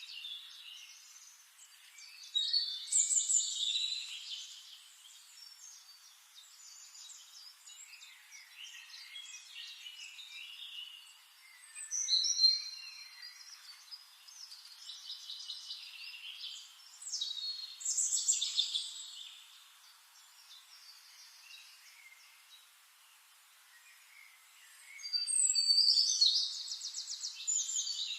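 Forest songbirds singing and calling, in varied chirping and trilling phrases with quieter stretches between; the loudest bursts come about 3, 12 and 18 seconds in, and a longer, rapid trilling run comes near the end.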